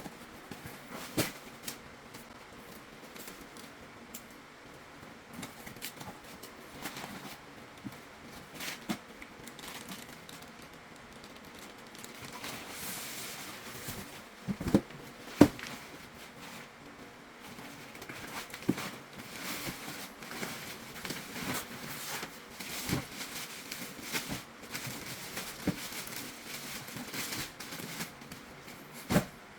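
Hands unpacking an inflatable airbed: plastic packaging crinkling and rustling, with scattered clicks and knocks, the sharpest pair about halfway through.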